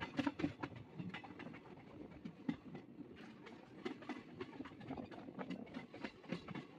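Passenger train coach wheels clattering over the pointwork and rail joints of the station tracks: a quick, irregular run of clicks and knocks over a steady rumble of the moving train.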